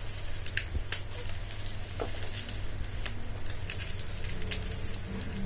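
Bubble-wrap packaging crinkling and crackling as hands handle it and work it loose around a box, with irregular small clicks.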